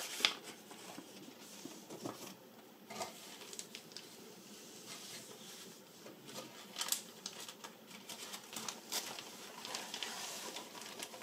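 Clear plastic kit bag and paper sheets being handled: irregular crinkling and rustling, with sharper crackles just after the start and about seven and nine seconds in.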